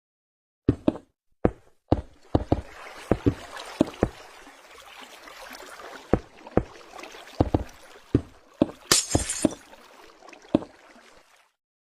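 A string of about a dozen sharp, irregular knocks and clinks, as of hard objects being handled and set down, over a steady hiss, with a short burst of higher hiss about three quarters of the way through.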